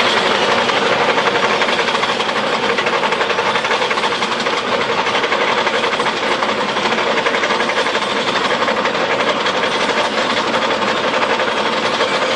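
Loud machinery running with a dense, rapid mechanical clatter, cutting off abruptly at the end.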